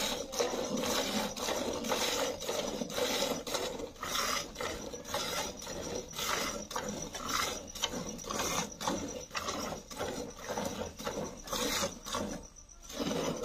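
A cow being milked by hand: milk squirting from the teats into an aluminium bucket partly full of milk, in a steady rhythm of short strokes.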